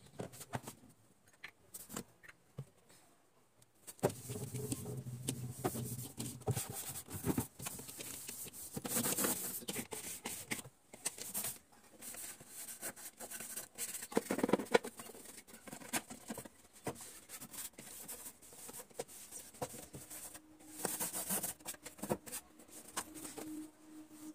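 Objects being handled, with scattered knocks, clicks and rubbing, and a steady low hum coming in near the end.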